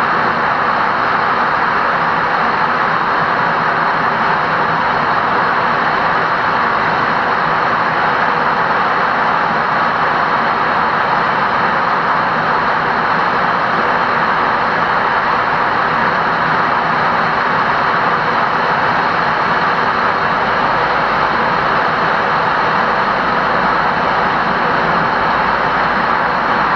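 Steady road and tyre noise of a car driving through a road tunnel, heard inside the cabin.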